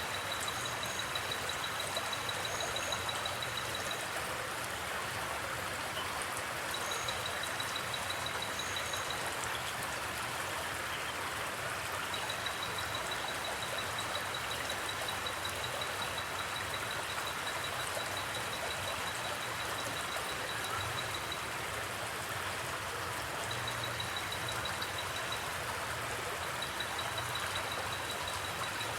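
A river running steadily. A cricket trills high over it in runs of a few seconds that stop and start again, and there is a faint low hum underneath.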